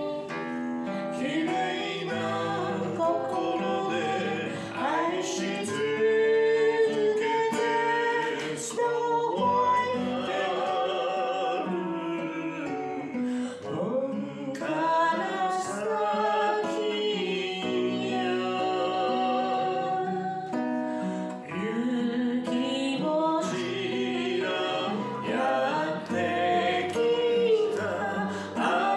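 Acoustic guitar played with a man singing a song along to it.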